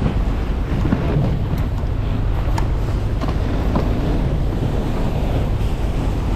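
Boat engine running steadily as the bow is held against a sea rock, with waves washing against the rocks and wind buffeting the microphone. A few light knocks sound here and there.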